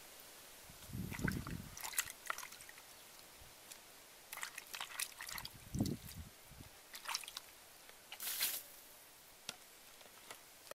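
A hand sloshing and rubbing produce in a plastic basin of water: irregular small splashes and drips, with fuller splashes about a second in and again near six seconds.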